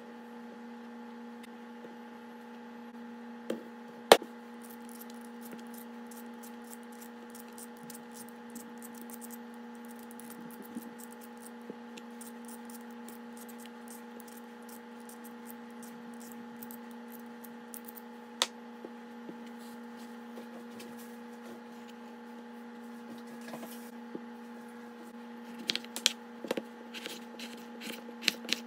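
A steady hum with light clicks and knocks scattered over it, one sharp knock about four seconds in, and a quicker run of clicks near the end.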